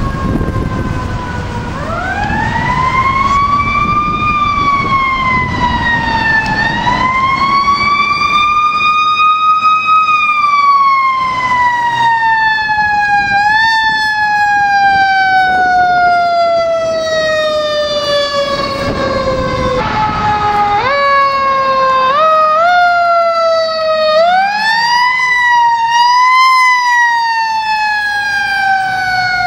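Fire engine's mechanical Q siren winding up quickly and then coasting down in long, slowly falling wails, restarted several times, with a few short quick blips partway through. A heavy truck engine rumbles low underneath at the start.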